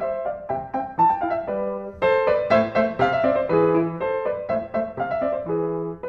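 Background piano music: a steady flow of struck notes and chords.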